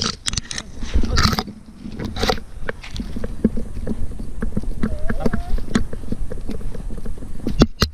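A Border Collie running through forest undergrowth with a camera on its body: dry stalks and ferns rustling and scraping against the camera, then its paws thudding in a quick rhythm of about three steps a second. A short faint wavering tone comes about five seconds in.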